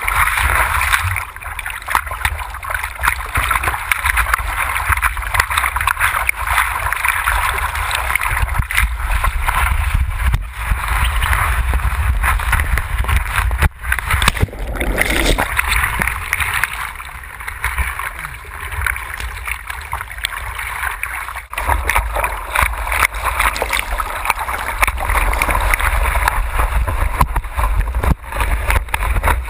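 Whitewater rushing and splashing over a surfboard as it rides a breaking wave, heard from a camera on the board's nose, with a steady low rumble of water and wind on the microphone.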